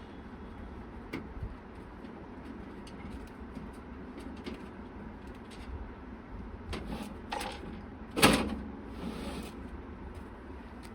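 Handling of a PC case and its panels: scattered light clicks and knocks, with one louder sharp knock about eight seconds in.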